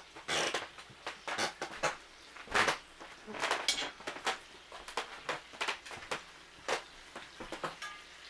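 A metal utensil clicking and scraping against a cast iron skillet as bacon is turned, in a run of short, irregular sharp knocks.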